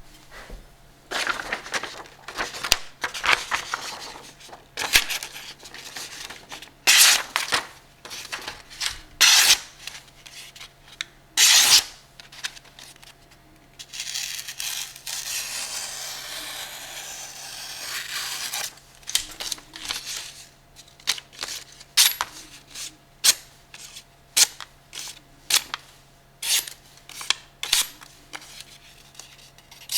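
Freshly sharpened boning knife slicing through paper in a paper cut test: many short, crisp cuts, with one longer continuous slice of about four seconds midway. A faint steady low hum runs underneath.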